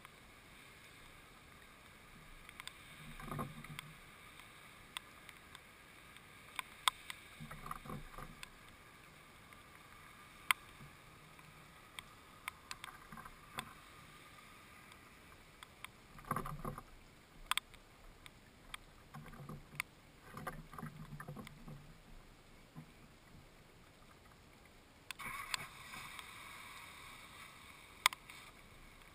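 House sparrow on a wooden feeder: scattered sharp taps and small clusters of low knocks as it feeds and shifts about on the boards, over a steady outdoor hiss that grows louder near the end.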